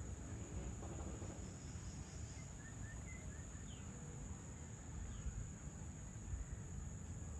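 Evening ambience dominated by a steady, high-pitched trill of crickets, with a few short bird chirps two to four seconds in, over a faint low rumble.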